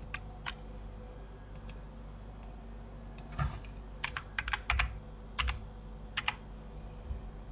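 Typing on a computer keyboard: irregular keystrokes, a few scattered early on and a quicker run of them in the middle, as a file name is typed in.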